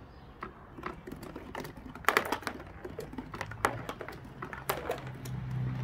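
Marbles dropped into a taped cardboard-tube marble run, clicking and knocking as they roll down and land in a cardboard box: a scatter of irregular sharp clicks, thickest about two seconds in. A low steady hum builds up in the second half.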